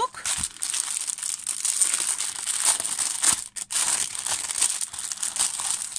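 Clear plastic packaging around a diamond painting notebook kit crinkling as it is handled by hand, a near-constant crackle with a brief pause about three and a half seconds in.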